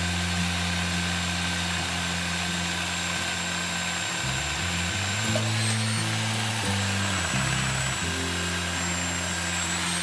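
Background music with a bass line that steps from note to note.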